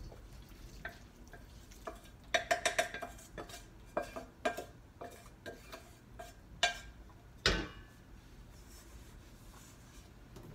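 Metal pan and utensil clattering while the fat is strained off browned ground beef: a quick run of ringing clinks about two and a half seconds in, scattered knocks after, and a heavier knock about halfway through.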